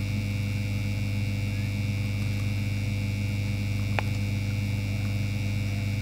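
Steady electrical mains hum with a fainter higher whine over it, and one small click about four seconds in.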